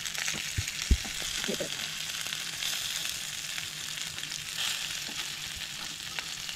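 Semolina-coated fish pieces shallow-frying in oil on a tava: a steady sizzle, with a few sharp clicks of metal tongs against the pan in the first second as the pieces are turned over.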